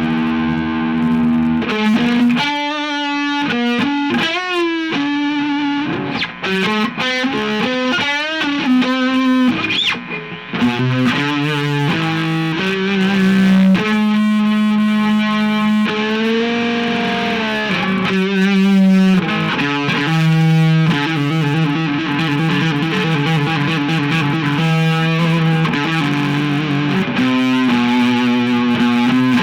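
Electric guitar played through overdrive distortion: a single-note lead line with string bends, vibrato and some notes held for a second or two.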